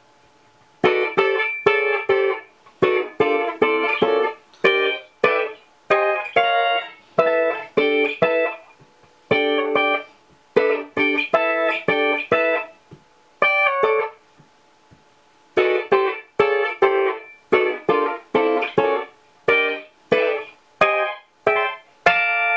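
Electric guitar playing a run of short, sharply stopped chords in quick groups with brief silences between. It goes through a Kemper amp's harmonizer set to add a voice a perfect fourth up.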